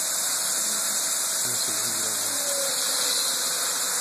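Small micro-hydro turbine running: water jets hiss steadily against the turbine wheel, under a thin whine from the spinning wheel and DC generator. The whine drops in pitch about two and a half seconds in, then slowly climbs as the flow through the nozzles is adjusted.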